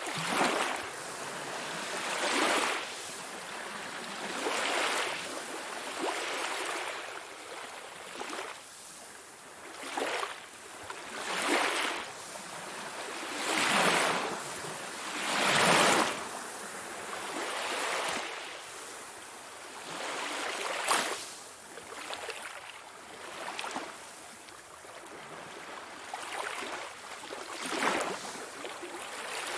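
Sea waves washing in: a rushing hiss that swells and fades every two seconds or so, loudest about halfway through.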